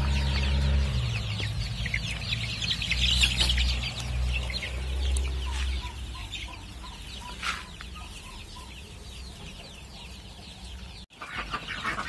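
A flock of month-old desi chicks peeping and cheeping, many short high calls overlapping and thinning out after about six seconds. In the middle there is a short run of evenly spaced peeps. A low rumble sits under the first few seconds.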